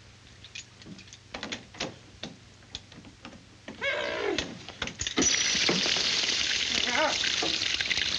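A wrench knocking and clanking against a metal pipe fitting in short scattered strokes, then about five seconds in a sudden loud, steady hiss of water spraying from the broken fitting.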